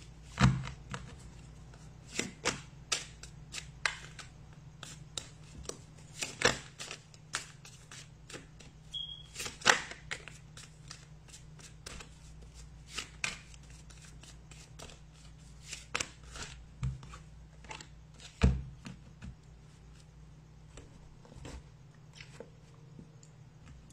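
Tarot cards being handled and laid down on a table: irregular sharp snaps and slaps of card on card and on the tabletop, over a steady low hum.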